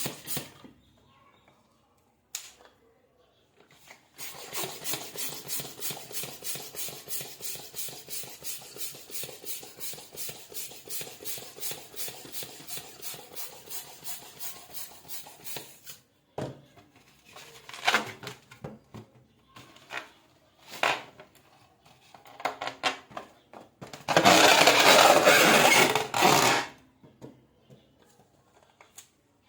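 Balloons being inflated: a rapid, even run of pump strokes, about four a second, for some twelve seconds, then scattered handling and rubbing of the rubber. A loud rush of air lasts about two seconds near the end.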